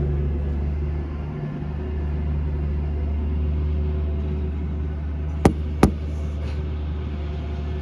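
Steady low machine hum, with two sharp clicks close together about five and a half seconds in.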